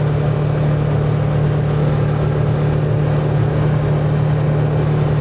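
Polaris Ranger side-by-side's engine running at a steady speed while driving, a loud, even drone.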